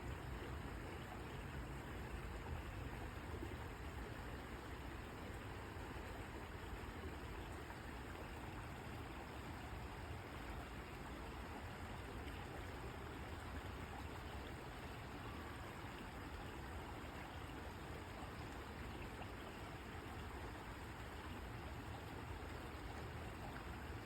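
Steady rush of flowing water, like a stream running, with no other distinct sounds.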